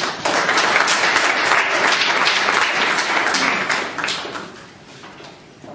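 A small audience applauding, many hands clapping together. The clapping dies away after about four seconds, leaving a few scattered claps.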